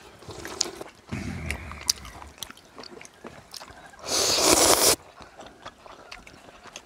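People eating ramyun noodles: one loud slurp lasting most of a second, about four seconds in, over chewing and scattered light clicks of chopsticks on bowls.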